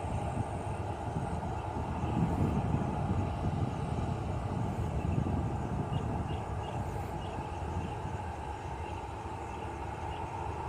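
Airliner's jet engines running with a steady rumble and hum, the low rumble swelling for a few seconds from about two seconds in.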